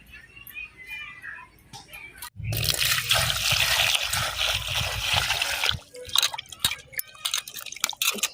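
Water poured out in a rush and splashing for about three seconds, starting suddenly, with small clinks and knocks of utensils before and after.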